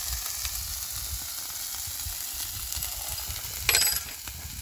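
Meat frying on a griddle pan: a steady sizzling hiss, with a brief louder crackle about three and a half seconds in.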